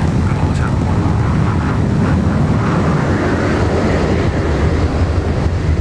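Jet engine of the Bloodhound supersonic car running with a steady, loud, deep rumble.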